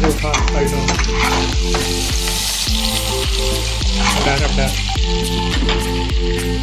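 Chicken curry frying and sizzling in a pan, a steady hiss with a few scraping sounds of stirring, over background music with a steady beat and bass line.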